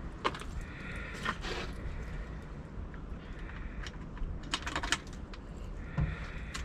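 Scattered light clicks and rattles in a few short clusters, with some rustling, over a low steady rumble.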